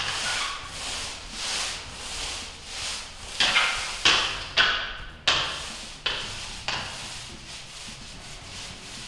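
Long-handled roller being pushed back and forth through wet epoxy coating on a concrete floor: a series of rubbing swishes, one per stroke, sharper and louder for a few strokes in the middle.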